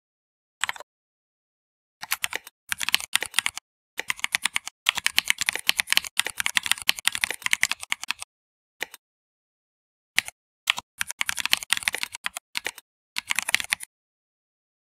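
Typing on a computer keyboard: fast runs of key clicks in several bursts, with short pauses between them.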